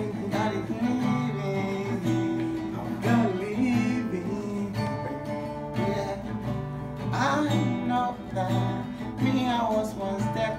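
Acoustic guitar strumming chords, with a man's voice singing over it in places: wavering vocal runs come in a few times between the chords.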